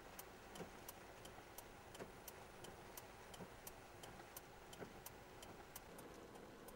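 Near silence inside a car: faint background noise with a steady faint ticking about three times a second.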